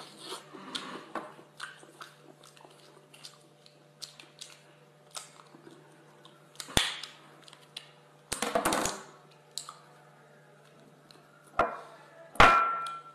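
Table knife clicking and scraping against a scallop shell as raw scallop meat is cut free, mixed with chewing. There are several louder knocks; the loudest, near the end, rings briefly.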